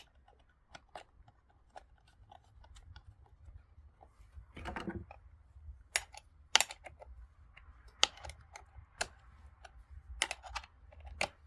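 Scattered sharp clicks and metallic clinks of a wrench working the side-cover bar nuts on a Dolmar chainsaw as they are tightened down, with a short scraping rasp about four and a half seconds in.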